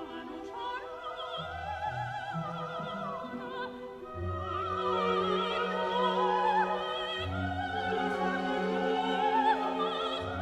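Classical music: an operatic voice singing long held notes with wide vibrato over orchestral accompaniment with strings, swelling louder about four seconds in.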